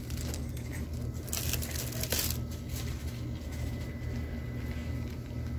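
Steady low hum of store background noise with a thin high tone, and two brief rustles of handling about one and a half and two seconds in.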